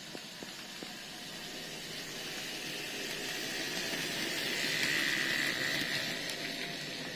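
N scale model train running close past the microphone: the locomotive's small electric motor whirs and the wheels rattle on the track. It grows louder to a peak about five seconds in as the locomotive passes, then eases slightly as the cabooses follow.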